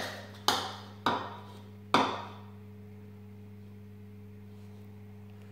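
Metal spoon knocking against the rim of a plastic mixing bowl while stirring slime: three sharp knocks in the first two seconds, each ringing briefly. After that only a steady low hum remains.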